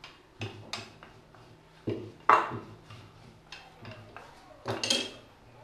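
Wooden rolling pin knocking and clattering on a marble countertop while rolling out samosa dough and being set down: a run of sharp knocks, the loudest about two seconds in and a quick cluster near the end.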